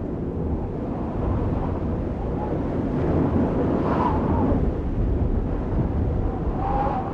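Audience noise in a hall after a performance: a dense, steady rumble of clapping and crowd voices.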